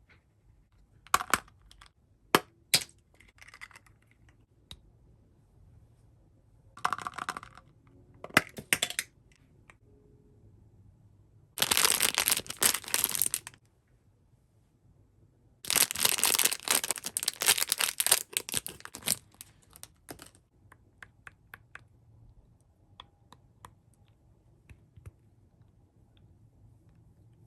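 Barbie Color Reveal toy packaging being handled: a few sharp clicks and taps, then two long stretches of crinkling and tearing plastic wrapping, followed by scattered small ticks.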